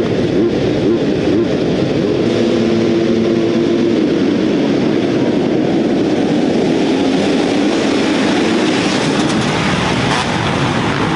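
A full field of motocross bikes revving together on the start line and accelerating away as a pack in a dense, continuous engine noise, with bikes passing close near the end.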